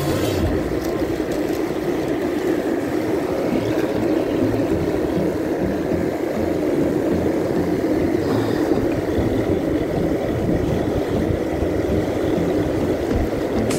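Steady, unbroken rush of wind and sea washing over a shallow rocky reef.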